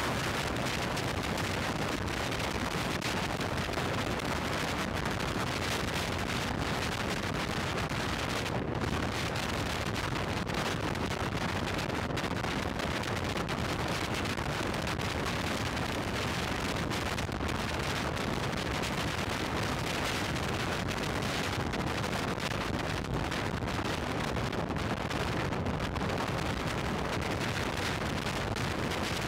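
Steady wind rush over an action camera's microphone on a motorcycle moving at highway speed, with road noise mixed in.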